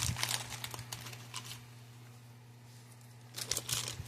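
Light clicks and rattles of small screws and metal parts being handled while screws are taken out of an electric fence charger. One cluster of clicks comes in the first second and a half and another near the end, over a steady low electrical hum.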